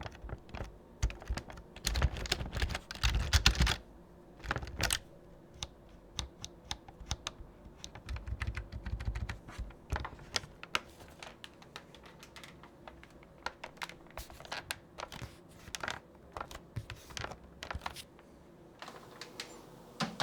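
Typing on a Logitech K480 membrane keyboard: irregular key clicks with faster runs of typing about two to four seconds in and again around eight to ten seconds in.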